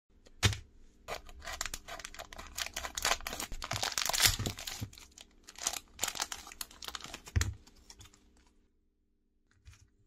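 Thin clear plastic packet crinkling and crackling as it is handled and torn open by hand, with a couple of heavier handling thumps, about half a second in and again past the seven-second mark. The crackling dies away around eight and a half seconds in.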